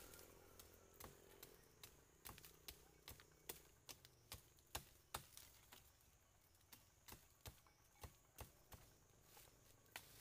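Faint, irregular crackling and sharp clicks of dry bamboo leaves and twigs being handled and pushed aside by hand on the forest floor.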